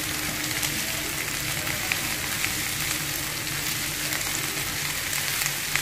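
Shredded cabbage, carrots and capsicum sautéing in oil over high flame: a steady sizzle while a silicone spatula stirs and scrapes the vegetables around a frying pan, with a few light clicks.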